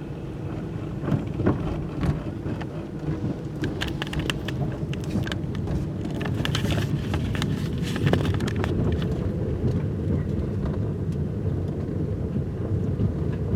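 Car cabin noise while driving: a steady low rumble of tyres and road, with scattered clicks and crackles.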